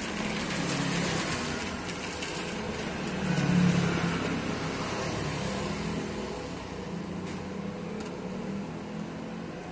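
A motor vehicle's engine running nearby, a steady low drone that grows loudest about three and a half seconds in and then eases off.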